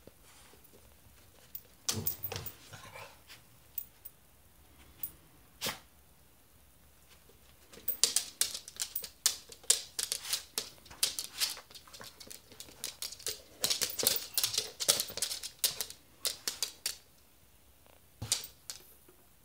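A small dog's claws, with a rabbit's feet, clicking and scrabbling on a hardwood floor as the two play. There are a few single knocks at first, then quick runs of rapid taps through the middle and a short flurry near the end.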